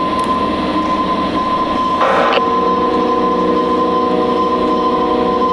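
Steady electronic drone of hiss and held tones, one high and one lower. A short burst of hiss comes about two seconds in, after which the lower tone shifts slightly higher.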